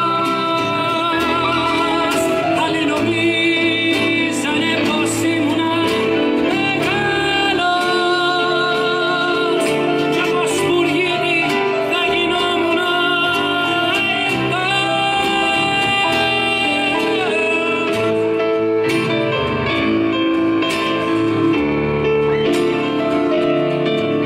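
Live band music: a singer holding long, wavering notes over acoustic guitar and band accompaniment.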